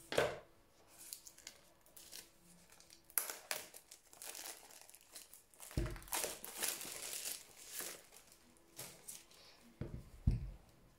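Wrapping being torn and crinkled off a tarot card deck box by hand: irregular crackling and tearing, with a couple of dull knocks about six seconds in and near the end as the box is handled.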